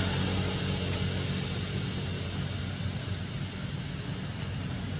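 A motor vehicle's engine idling, a low steady rumble that slowly fades, with a faint high ticking repeating about five times a second.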